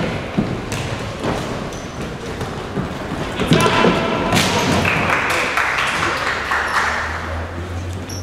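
Futsal ball kicks and thuds on an indoor court: several sharp knocks spread through the stretch, with players shouting in the middle part.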